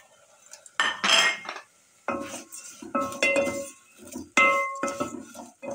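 A wooden spoon stirring thin vermicelli in a stainless steel pot, knocking against the pot four or five times, each knock ringing briefly in the metal. About a second in there is a clatter as the noodles are tipped from a plate into the pot.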